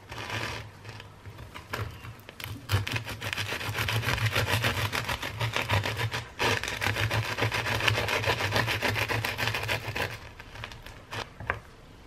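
Serrated bread knife sawing through the crisp crust of a toasted pumpkin-seed roll on a wooden cutting board: fast rasping back-and-forth strokes with a short break partway through, stopping near the end.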